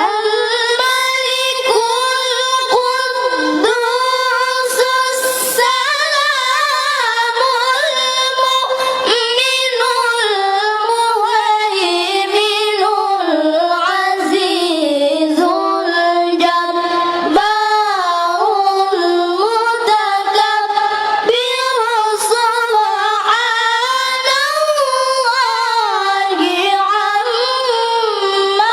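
A girl's high voice chanting a melodic, ornamented Quranic recitation (tilawah) with no accompaniment, in long phrases with short breaks for breath.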